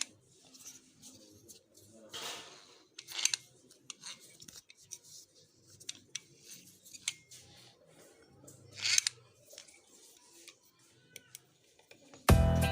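Scattered short scrapes and clicks of hand work on small parts, a few seconds apart. Music starts abruptly near the end.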